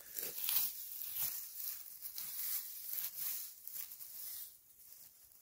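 Dry pine needles rustling and crackling in irregular bursts as a hand digs and pushes through the needle litter; the rustling dies down near the end.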